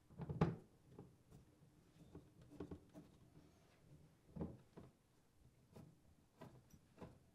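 Faint clicks and small knocks of a Phillips screwdriver driving screws back into a dishwasher tub, with louder knocks about half a second in and again a little past the middle.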